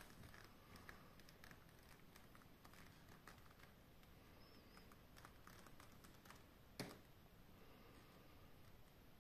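Near silence: faint room tone with scattered small clicks and one sharper click about seven seconds in.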